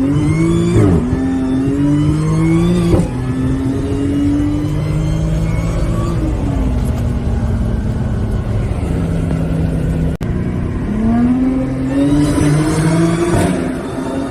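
Audi B8 S4's supercharged V6 accelerating through the gears. The engine note climbs and drops sharply at shifts about one and three seconds in, eases off and holds steady, then climbs again through another shift near the end.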